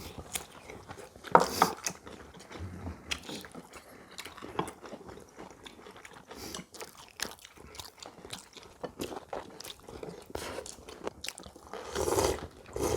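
People eating at a table: chewing and crunching food, with scattered short clicks of chopsticks and spoons.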